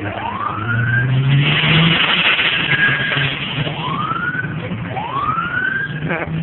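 A short rising siren whoop repeats four times, with a car engine running underneath. The engine revs up about a second in, with a brief hiss of noise after it.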